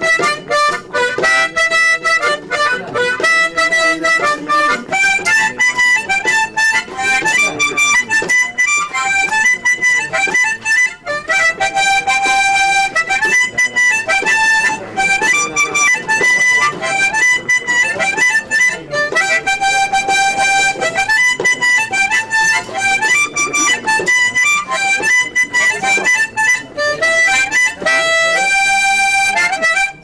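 Harmonica played solo, a melody that moves between quick notes and longer held ones, with several notes sounding together as chords.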